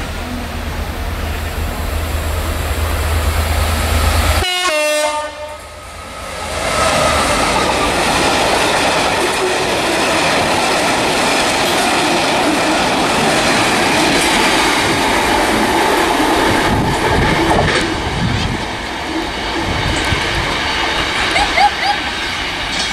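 Diesel-hauled freight train of spoil hopper wagons passing through a station: a low engine rumble grows as the locomotive approaches, a short horn sounds about four and a half seconds in, then a long steady clatter of wagon wheels on the rails.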